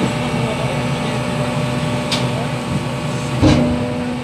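Garbage compactor truck running steadily at a stand. About three and a half seconds in there is a loud clunk, after which a steady hum sets in.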